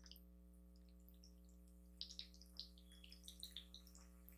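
Near silence, then faint wet clicks and smacks of eating from about two seconds in: a scattering of small ticks over a second and a half, from a mouthful of spaghetti and a fork twirling the sauced noodles.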